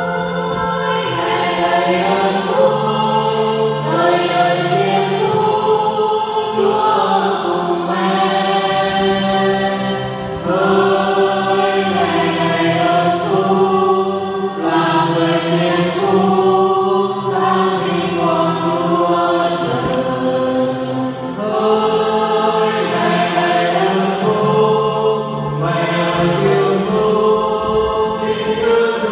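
Choir singing a slow hymn in long held phrases, each a few seconds long, over sustained low accompanying notes.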